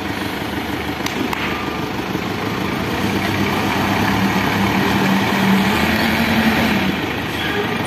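Pickup truck engine running under load as the truck tries to drive out of a muddy rut, growing louder and slightly higher in pitch a few seconds in and easing off near the end.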